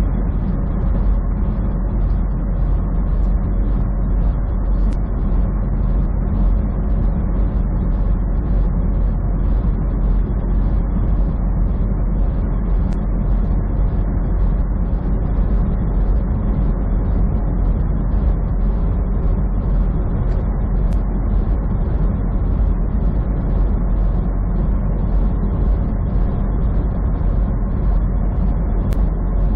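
Semi truck cruising on the highway: steady low drone of the engine and tyre/road noise with no change in pace.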